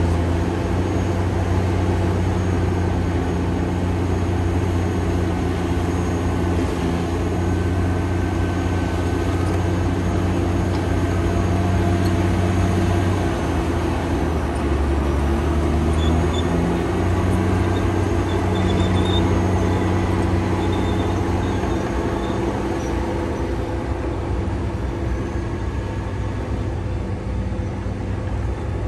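Caterpillar D9T crawler dozer's C18 diesel engine running steadily under work. Its note dips lower for a couple of seconds about halfway through, then comes back up.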